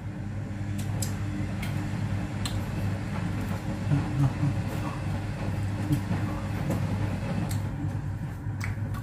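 Washing machine running in the background with a steady low hum, with scattered small clicks from eating by hand.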